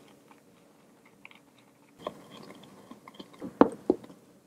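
Whisk stirring flour into a thin batter in a ceramic bowl: quiet at first, then soft scraping from about halfway, with a few sharp taps of the whisk against the bowl near the end.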